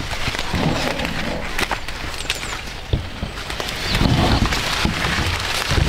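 Leaves of standing corn plants rustling and crackling as they are pushed through and handled, with many scattered sharp clicks.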